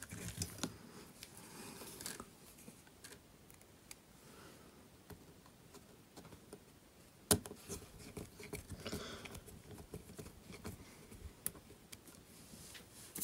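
Small screwdriver driving tiny screws into the metal plate over a Sony Xperia tablet's charging socket: faint scraping and scattered light clicks, the sharpest about seven seconds in.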